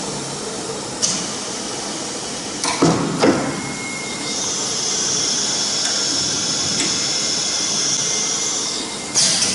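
CNC router's automatic tool changer swapping to the second tool: a hiss of compressed air about a second in, two sharp clunks around three seconds, then a steady high hiss with a thin whine for about five seconds, ending in another sudden air hiss.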